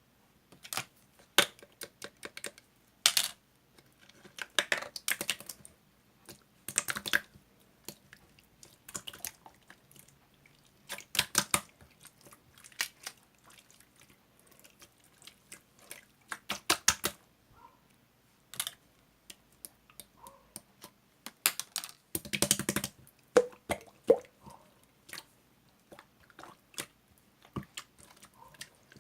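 Irregular clusters of sharp clicks and taps in a small room, with a denser burst of rattling clicks about three quarters of the way through.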